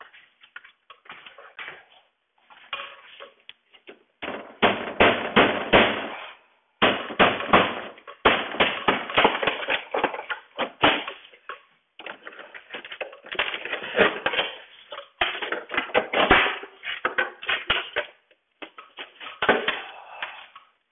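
Wooden window trim being pried off a double-hung window frame with a flat pry bar: rapid runs of cracks, knocks and taps as the trim and its nails pull away. They come in several bursts with short pauses between them.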